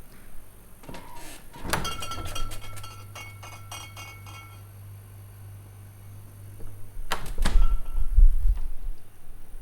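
A refrigerator door opening with a sharp clack about two seconds in, followed by a steady low hum and a light rattle of things inside. About seven seconds in the door is shut, with clacks and heavy low thuds, the loudest part.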